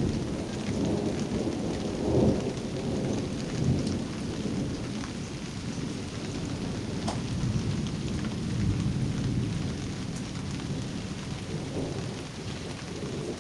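Thunder rumbling in long rolls that swell and fade several times, over steady rain with scattered drops ticking close by.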